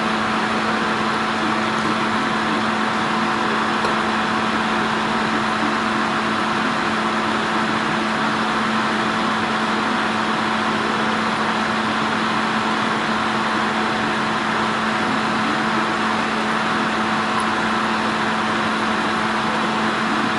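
Steady hum with a hiss from a machine running without change, with no strikes or breaks.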